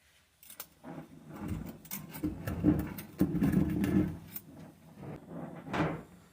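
Handling noise: irregular clicks, knocks and rubbing, as of metal parts and tools being moved and set down, starting about half a second in and stopping suddenly near the end.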